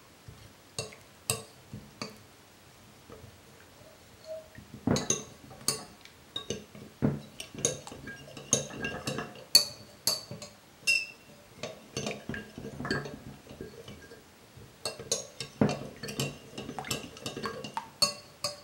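Metal hand whisk clinking and scraping against a glass bowl while stirring a thick cornstarch-and-water paste, in irregular strokes with a short lull a couple of seconds in.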